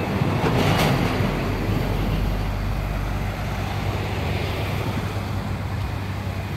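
Road traffic: a flatbed truck's engine and tyres passing close, easing off over the first few seconds into a steady engine hum and road noise.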